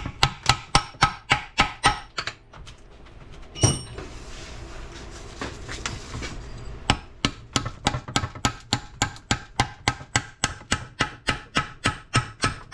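Hammer striking a punch to drive the idler shaft out of an NP205 transfer case: quick metal-on-metal blows, about five a second at first, one loud ringing strike near four seconds in, then after a short pause a steady run of about three blows a second.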